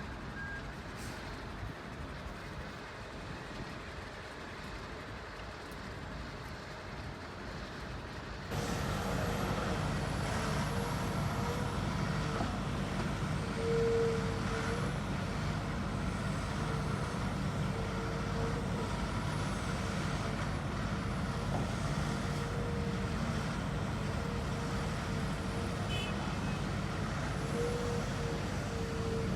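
Radio-controlled construction machines running. About eight seconds in, a louder steady truck-like engine drone with a held tone starts abruptly and carries on.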